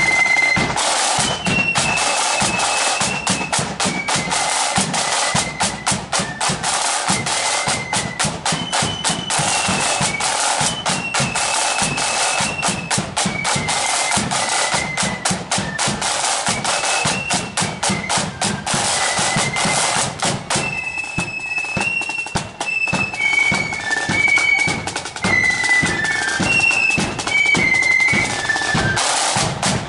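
Marching flute band playing a march: a high flute melody over side drums beating and rolling, with bass drum underneath. About twenty seconds in, the drumming thins out and the flutes stand out more.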